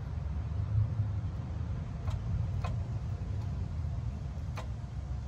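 Three sharp, separate clicks, about two seconds in, half a second later, and near the end, from a crankshaft being turned slowly forward by hand. A low steady rumble runs under them.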